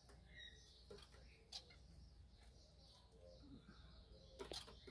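Faint, soft chirps of society finches in an aviary, with a few light clicks, one about a second and a half in and a few near the end.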